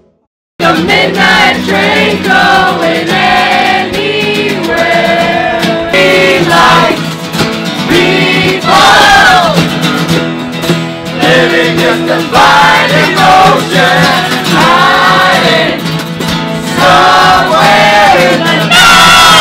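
A group singing together to acoustic guitar and ukulele strumming, starting suddenly about half a second in after a moment of silence.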